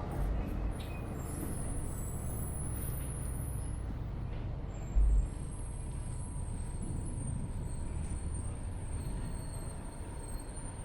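Heritage tram running along its track with a steady low rumble. It gives two brief low thumps, about half a second and five seconds in, over a faint high-pitched squeal.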